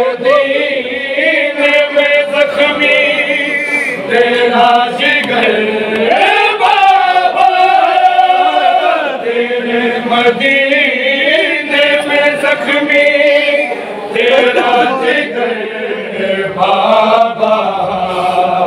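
Men's voices chanting a noha, a Shia lament, unaccompanied: a lead reciter sings and the group of men chants along with him.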